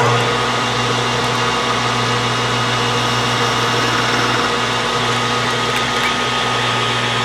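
Metal lathe running at speed with its four-jaw chuck spinning, a steady motor and gearing hum with a whine above it, while a cutting tool takes a quick chamfer on the bore edge of a turned pulley.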